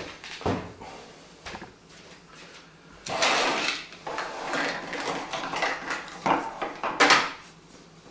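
Handling noise: a few sharp clicks and knocks, then from about three seconds in a long stretch of rustling and scraping with small knocks as parts and cables are moved about, ending with a sharp click.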